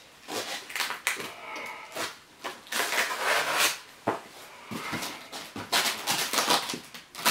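Box cutter slicing through packing tape and cardboard on a shipping box, with cardboard scraping and rustling in a series of short strokes.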